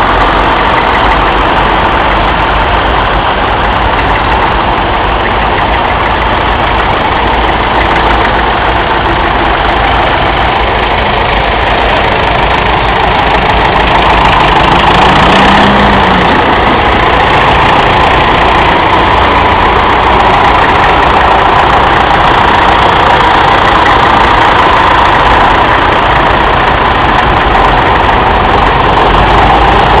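Vintage tractor engines running as the tractors drive past one after another: a Massey Ferguson, then a David Brown Selectamatic 990, then an International Harvester 634 four-wheel drive. The sound is loud and continuous, getting a little louder about halfway.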